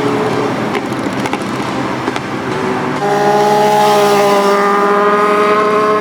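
Superbike engines and exhausts running at speed as the bikes pass, with a steady high-revving note held for the second half.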